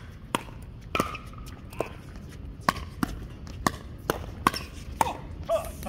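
Pickleball paddles striking a plastic pickleball in a fast doubles exchange at the net: about eight sharp pops, each a second or less apart.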